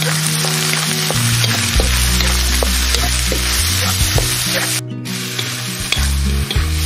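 Fried rice and diced vegetables sizzling in a hot pan over an open fire as they are stirred, with scattered small pops; the sizzle briefly drops out about five seconds in. Background music plays underneath.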